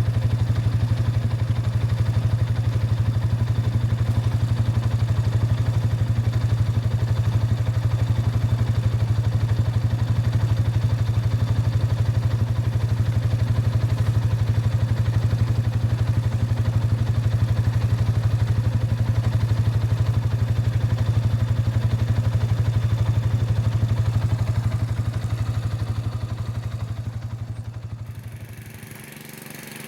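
A small engine running steadily at a constant speed, a low even drone that fades away over the last few seconds.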